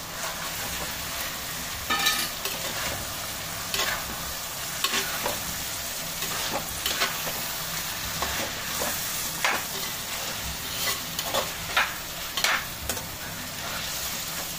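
Masala-marinated chicken sizzling in oil with onions and tomatoes in a kadai, being stirred, with the spatula scraping and knocking against the pan every second or two.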